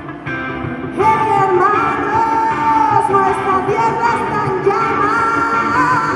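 Live song: a woman sings loud, long held notes, belting with her mouth wide open, over electric guitar and backing music. The voice comes in much louder about a second in.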